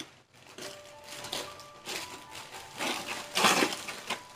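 Plastic snack packaging crinkling in several short bursts as it is handled, the loudest burst near the end.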